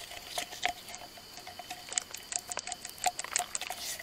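Dry wood and bamboo crackling and clicking in irregular sharp snaps, thickest in the second half.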